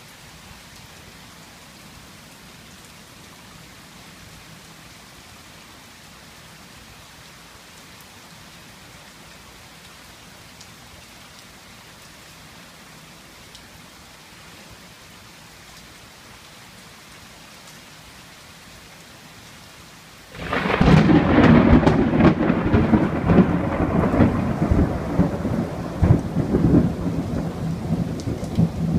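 Steady heavy rain, then about twenty seconds in a sudden, loud crack of thunder from a nearby lightning strike that goes on rumbling and crackling for several seconds.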